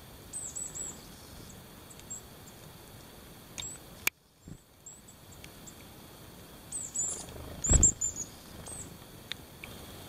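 European crested tit calling at a feeder: clusters of short, high, thin chirps, about half a second in and again several times from seven seconds on. A sharp click comes about four seconds in, and a loud low thump just before eight seconds.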